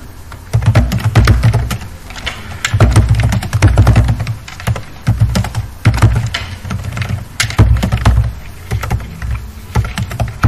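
Typing on a computer keyboard: quick, irregular key clicks in short bursts with brief pauses between them.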